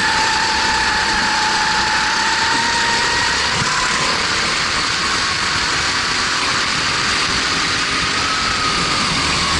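Onboard sound of a Formula 270 kart's single-cylinder four-stroke Honda GX270 engine running under throttle, its note climbing slowly over the first few seconds as the kart picks up speed, then lifting and falling back slightly near the end, over a steady hiss of wind and wet track.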